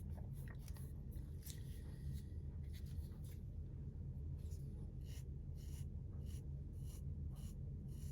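Faint, scratchy scraping of a Roxon multitool's knife blade drawn across the back of a hand to test its sharpness, shaving off a few hairs, in short strokes over a steady low hum.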